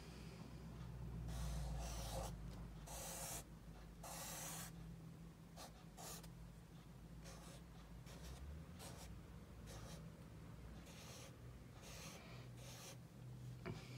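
Felt-tip marker drawing on a paper pad: a series of faint, scratchy strokes of up to about a second each, over a faint steady low hum.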